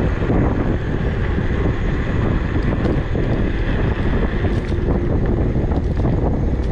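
Steady wind noise buffeting the microphone on an electric scooter moving at about 19 mph.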